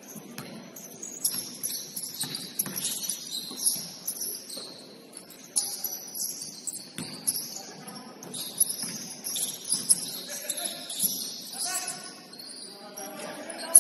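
Basketball sneakers squeaking on the court in many short, high chirps as players move, with a few faint voices in the gym.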